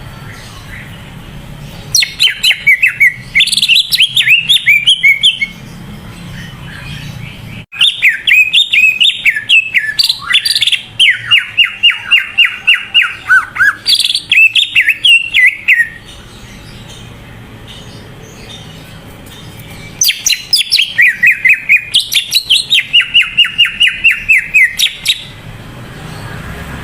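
Cucak ijo (green leafbird) singing in full voice: three spells of rapid, repeated chattering and whistled notes, the middle one longest, with short pauses between them.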